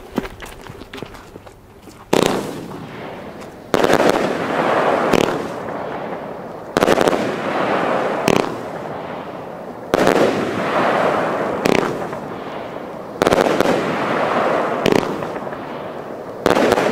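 A 25-shot, 30 mm fan-shaped fireworks cake firing after a quiet start of about two seconds. Loud bangs come about every one and a half to three seconds, and each big one trails off into a long, fading rush of noise.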